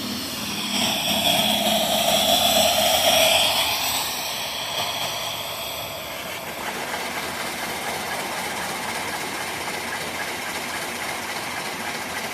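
Twin-cylinder forward-and-reversing steam engine (3-inch bore, 3-inch stroke) running on steam from a small boiler: a loud rush of steam hiss for the first few seconds as the valve opens, then the engine running steadily.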